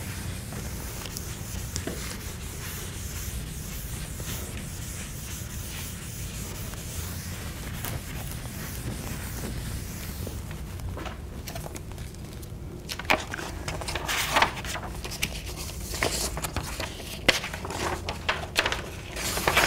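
Chalkboard being wiped with an eraser: soft, steady rubbing for the first half. From a little past the middle come louder, sharper rustles and knocks as sheets of paper are handled.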